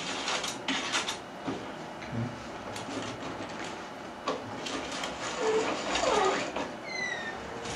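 Irregular clicks, rattles and scraping of curtain track parts being handled and slid together, with a short rising squeak near the end.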